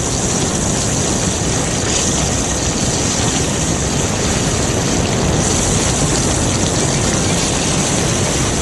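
Fire hoses blasting high-pressure water: a loud, steady rushing spray that keeps up without a break.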